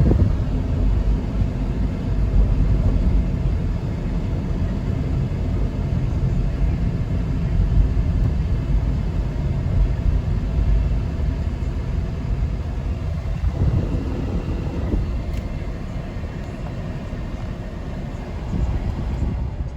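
Steady low rumble of a 1999 Lexus RX 300's 3.0-litre V6 running. The engine is misfiring on cylinder 6, which the owner puts down to a failing ignition coil.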